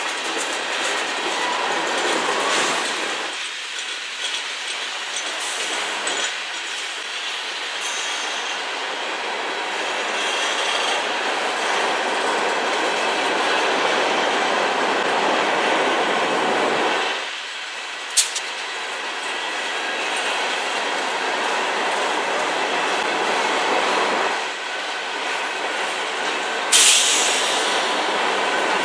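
Freight train cars rolling past: a steady rumble and rattle of steel wheels on the rails. About two-thirds of the way through there is one sharp click, and near the end a brief, louder burst of noise.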